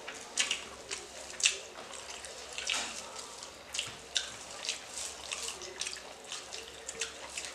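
Eating by hand: fingers mixing rice and fish curry on steel plates, making irregular short squishes and clicks.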